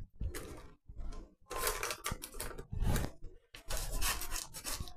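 A silicone spatula scraping and tapping on a floured silicone baking mat and on the paper liner of an air fryer basket as soft biscuit dough is lifted and set down, in several short, irregular bouts.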